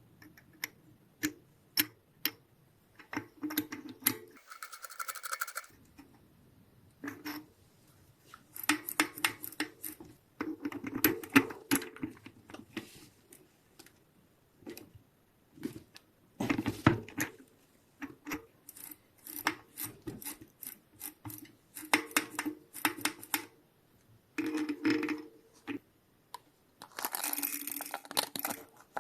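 Small metal parts and tools clinking and clattering in irregular bursts as a bicycle freehub is serviced by hand, with a short hiss near the end.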